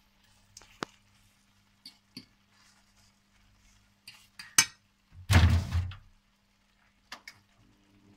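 Metal fork clinking and scraping against a nonstick frying pan in short scattered taps, with one louder dull thump a little after five seconds in.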